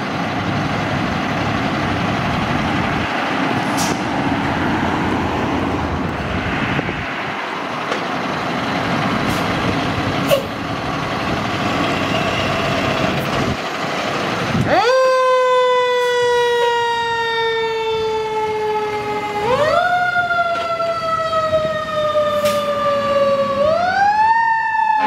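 Spartan fire engine's engine running as the truck pulls out. About fifteen seconds in, its siren starts in a wail: a quick rise in pitch, then a slow fall, rising again twice more.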